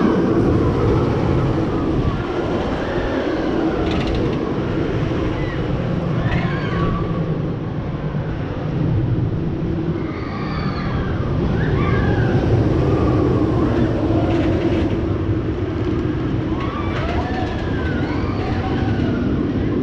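Iron Gwazi hybrid wood-and-steel roller coaster train running through its course, a steady rumble. Riders' screams rise and fall over it again and again.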